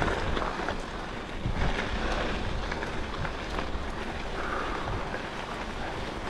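Wind rushing over an action camera's microphone while riding a bicycle along a dirt trail, with the tyres rolling over the ground as a steady rumble and faint ticks.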